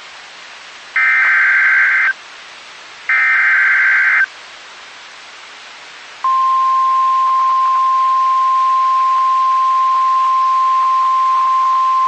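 Two bursts of Emergency Alert System SAME header data, the screeching digital tones that encode the alert, about a second each and a second apart. About six seconds in, a single steady warning alarm tone starts and holds, the 1050 Hz alert tone of NOAA Weather Radio that comes before a National Weather Service warning.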